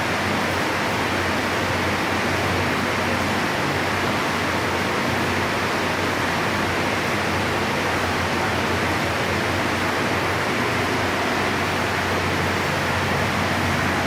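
Heavy tropical downpour falling steadily: an even, dense hiss with no breaks, over a faint steady low hum.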